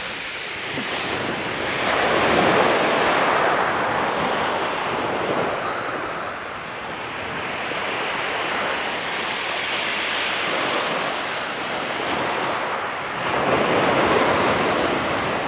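Small sea waves breaking and washing up a shingle beach, a steady wash that swells louder about two seconds in and again near the end.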